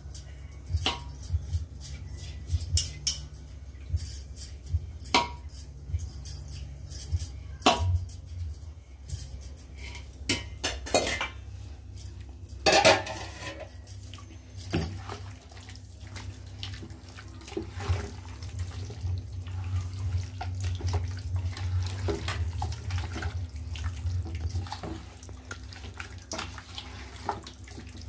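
Chicken pieces being mixed by hand with curd in a steel pot: wet squelching and sloshing of the marinade. Sharp metal clinks and knocks against the pot come through the first half, the loudest about 13 seconds in.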